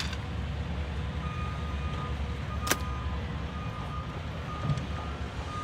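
Construction vehicle engine running with a reversing alarm beeping about once a second, each beep about half a second long. One sharp knock about halfway through is the loudest sound.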